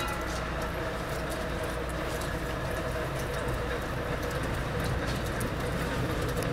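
Small narrow-gauge locomotive and passenger car rolling slowly around a curve toward the listener: a steady running and rolling sound with light clicking from the wheels on the rails.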